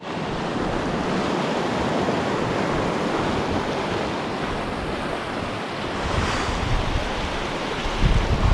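Loud steady rushing of creek water at a ford, with a few low thumps near the end.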